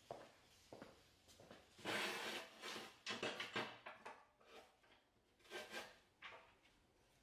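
Irregular bursts of scraping and rubbing from hand tools working on a rusty truck frame, the loudest run about two to three and a half seconds in.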